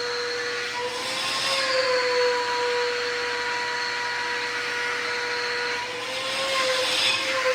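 Stanley 4-gallon wet/dry shop vacuum running, a steady motor whine over a rush of air. Twice, about a second in and again around six seconds, the pitch rises a little and the air noise grows louder.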